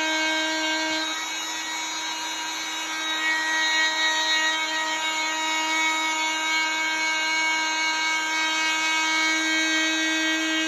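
Dremel oscillating multi-tool running at a steady speed: a continuous buzzing whine with many overtones, dipping slightly in loudness a second or so in.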